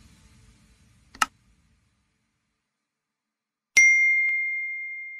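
Sound effects of a YouTube subscribe-button animation: a short sharp click about a second in, then near the end a bright notification-bell ding that rings on and slowly fades.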